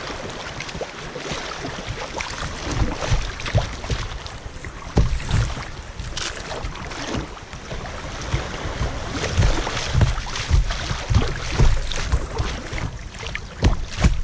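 Creek water rushing and splashing against a kayak's hull as it moves through riffles, with wind buffeting the microphone in irregular low thumps.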